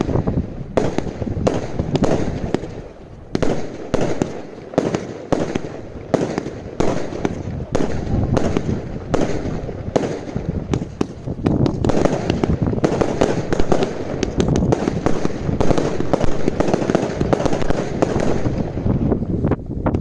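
Consumer fireworks going off in a rapid, continuous barrage of bangs and crackles, with a brief lull about three seconds in and the shots coming ever closer together in the second half.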